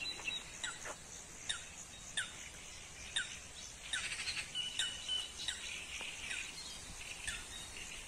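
Birds calling: short, falling chirps repeated about once a second, with a brief steady whistle about five seconds in.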